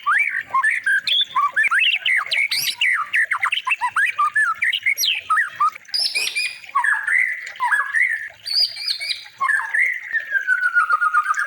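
Songbird singing a fast, varied song of quick whistled notes and harsh chattering phrases, then one long wavering whistle from about ten seconds in. It is a masteran recording played to train white-rumped shamas.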